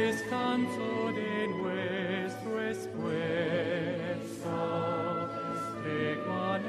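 Music: a singing voice with vibrato over steady held accompaniment.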